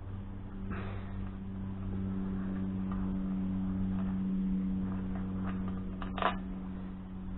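A few light clicks and taps of hand tools working on a Ford Pinto engine's inlet manifold, with the sharpest click about six seconds in, over a steady low hum.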